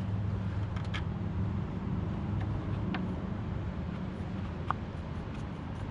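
A few light clicks and taps of parts being handled while a car speaker is fitted, over a steady low hum.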